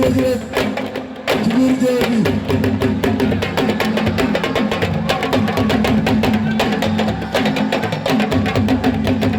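Music with fast, dense drumming and a singing voice over it.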